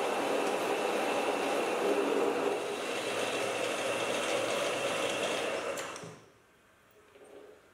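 Metal lathe running with a lathe tool cutting a turning metal workpiece: a steady machining noise with a hum and a thin whine. It cuts off suddenly about six seconds in.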